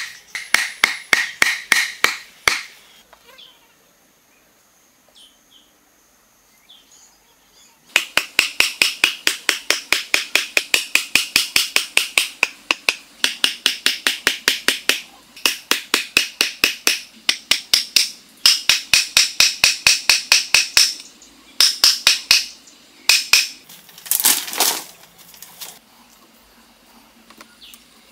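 Rapid, evenly spaced blows driving bamboo stakes into the ground, about four or five strikes a second. The strikes come in long runs, with a pause of a few seconds early on and shorter broken runs toward the end.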